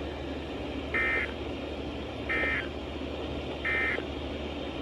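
Three short buzzy bursts of EAS (SAME) digital data tones from NOAA Weather Radio, each about a third of a second long and about 1.3 s apart: the End of Message code that closes the severe thunderstorm warning. A steady radio hum and hiss lies under them.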